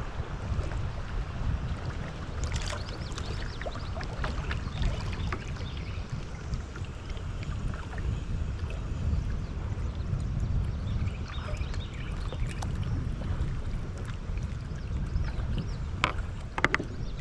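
Water splashing and trickling around a kayak on a river, over a steady low rumble of wind on the microphone, with a couple of sharp knocks near the end.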